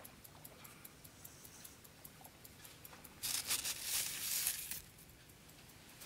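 A clock ticking steadily, about three ticks a second. About three seconds in, a louder scraping noise lasts about a second and a half.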